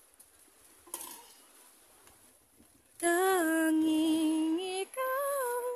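A voice singing two long held notes, each lasting a second or two: the first, lower one starts about three seconds in, and the second, higher one follows with a slight waver.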